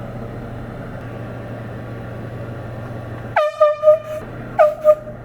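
Handheld canned air horn blown twice about three and a half seconds in. The first blast lasts almost a second and wavers in loudness; the second, shorter blast follows half a second later. Each one sags in pitch as it starts, then holds a steady blaring tone.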